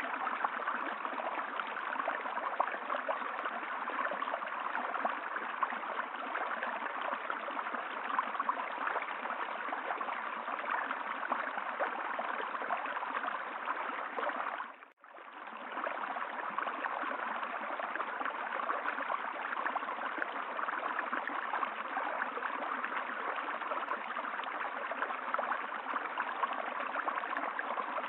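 Steady running water of a stream. About halfway through it fades out briefly and comes straight back in.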